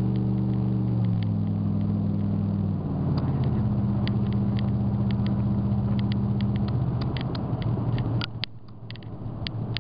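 Engine and road noise inside a moving truck's cab: a steady engine drone that steps in pitch about a second in and again near three seconds, with scattered light clicks and rattles. The sound drops briefly about eight seconds in.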